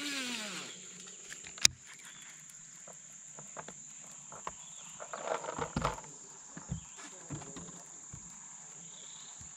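A baitcasting reel's spool whirs out on a cast, falling in pitch as it spins down, then gives a sharp click about a second and a half in. Later comes a short patch of rattling and knocking as the rod and reel are worked. A steady high insect drone, like cicadas, runs underneath.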